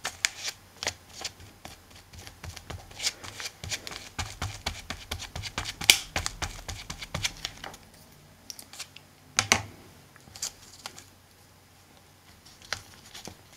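A flat glue brush scratching and dabbing over chipboard and paper in quick, irregular strokes, with hands handling and pressing down paper. The strokes come thickly for the first eight seconds or so, then thin out to a few scattered ones.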